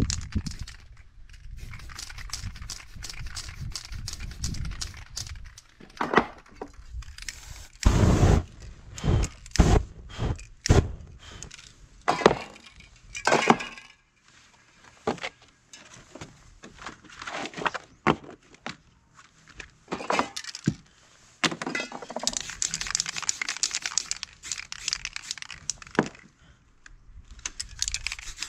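Aerosol spray paint hissing in bursts, broken by many sharp clinks and knocks of spray cans and other objects being handled and set down on the work surface; the knocks are loudest in the middle stretch.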